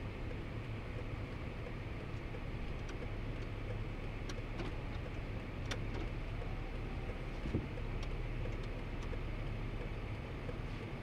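Steady low outdoor rumble, with a few faint, sharp clicks scattered through the middle.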